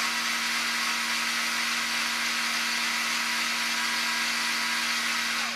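Cordless drill-driver running steadily as it backs a screw out of an RC crawler's chassis, stopping near the end.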